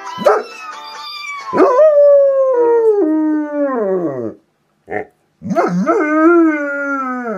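German Shepherd dog howling: a short yelp, then a long howl sliding down in pitch, a brief yip, and a second long falling howl near the end.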